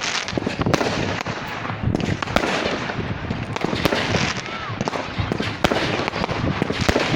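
Fireworks going off: a continuous hiss with many sharp bangs and crackles, several a second.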